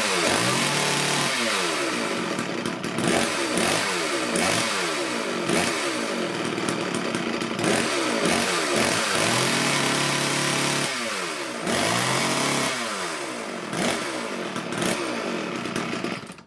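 Sachs Dolmar 105 two-stroke chainsaw engine running, blipped again and again so the pitch jumps up and falls back about once a second, with a few short steady stretches. It cuts out at the very end; the idle is set too low to keep it running.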